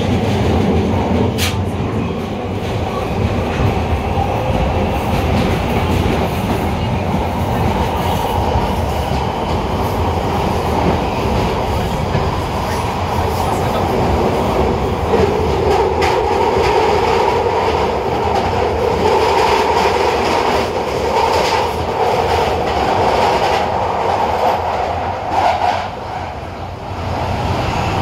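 London Underground Victoria line 2009 Stock train running through the tunnel, heard from inside the carriage: a steady, loud rumble of wheels and motors on the rails. A humming tone strengthens about halfway through, and the sound dips briefly near the end.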